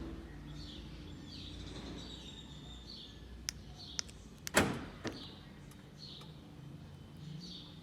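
Two light clicks, then a loud clunk of the car's central door locks about four and a half seconds in, with a smaller clunk just after. No alarm chirp sounds: the alarm is set or cleared silently, panic button then lock or unlock.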